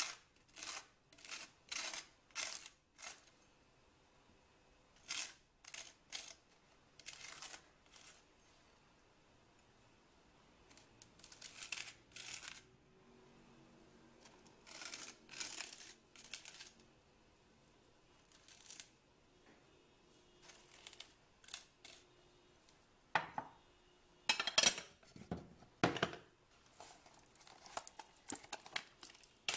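Table knife scraping butter across crisp, dry toast in short repeated strokes, coming in runs with pauses between them, the loudest strokes a few seconds before the end.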